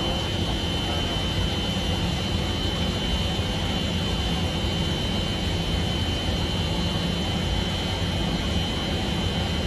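A steady mechanical drone with a thin high whine on top, holding an even pitch and level.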